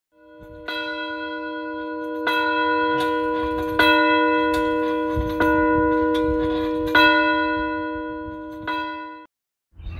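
A single church bell tolling, struck six times about every second and a half on the same note, each strike ringing on into the next. The ringing cuts off suddenly near the end.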